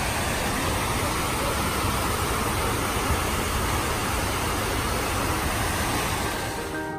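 Steady rushing of the 9/11 Memorial reflecting pool's waterfalls, water sheeting down the pool walls and into the central void. It fades out in the last half second.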